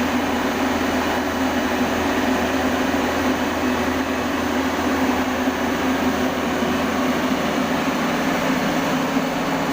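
A large engine running steadily, with a slight change in its tone about eight seconds in.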